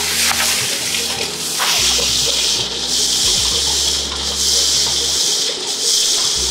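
Wet concrete rushing out of a concrete pump hose into foundation trenches: a loud, steady hissing rush over a low rumble that drops away briefly near the end.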